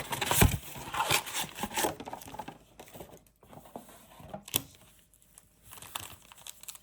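Foil trading-card pack wrapper crinkling and tearing as it is opened and handled, busiest in the first two seconds, with a sharp click about four and a half seconds in.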